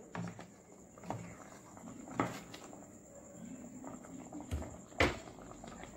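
Thick cornflour gravy simmering in a wok, with a few scattered pops from bursting bubbles; the sharpest comes about five seconds in.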